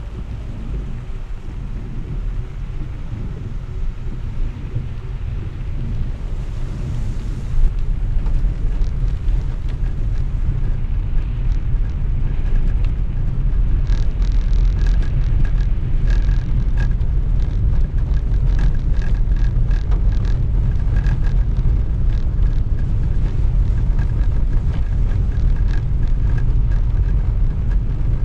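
Car driving on wet cobblestones in the rain, heard from inside the cabin: a steady low tyre and road rumble that grows louder over the first half. From about halfway in, many small sharp taps sound over it.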